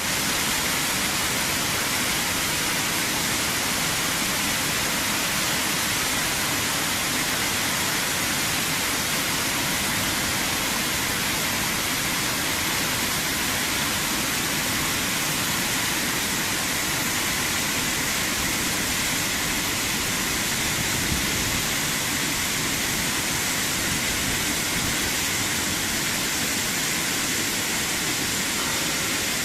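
Waterfall rushing: a steady, unbroken hiss of falling water, even throughout.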